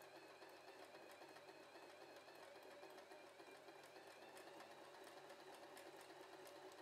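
W6 N 1800 mechanical sewing machine running faintly and steadily while sewing a blind-stitch hem, its motor whirring with a light regular ticking of the needle mechanism.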